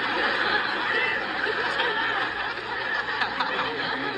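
Sitcom studio audience laughing in a sustained wave, heard through a tablet's speaker.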